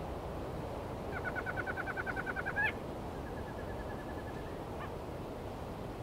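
An animal calling in a rapid trill of evenly spaced notes, about ten a second for a second and a half, ending in a sharp upward note. A fainter, faster trill and a single short note follow, over a steady hiss of wind.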